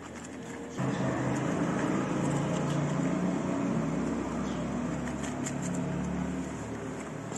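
A motor vehicle's engine running, its low rumble coming in abruptly about a second in and easing off near the end. Underneath it, faint crunching of a cat chewing dry kibble.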